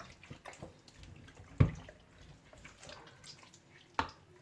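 Wet squelching and patting of hands rubbing a salt and lemon mixture into raw chicken, with a sharper knock about a second and a half in and another near the end.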